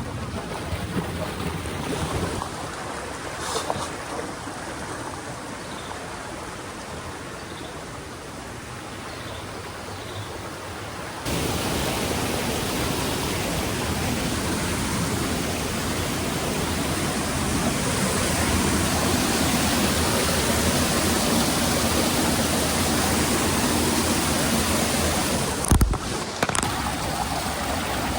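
Steady rush of water from a hillside stream and its falls, a continuous hiss with no tone in it. About eleven seconds in it jumps abruptly louder and fuller, and a brief thump sounds near the end.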